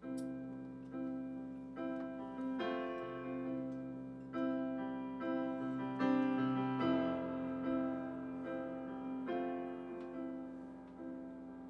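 Stage keyboard with a piano sound playing a slow song introduction: notes and chords struck about once a second and left to ring and fade.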